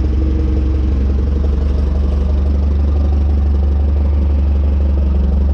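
Clark forklift engine idling steadily with a low, even drone.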